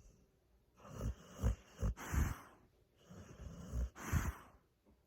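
Pit bull snoring in its sleep: two rough, snorting breaths about two seconds apart.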